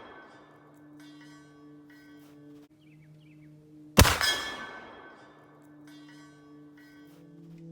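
A single loud report from a Whitworth black-powder muzzle-loading rifle about four seconds in, fading over about a second. It sounds over background music made of steady low drone tones.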